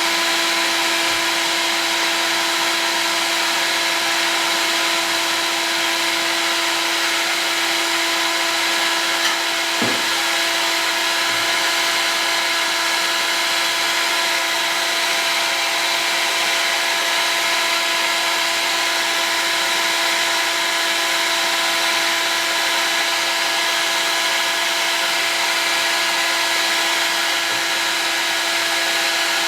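Heat gun running steadily, a motor hum with a constant rush of air, heating acrylic tube to soften it for bending. A single light click about ten seconds in.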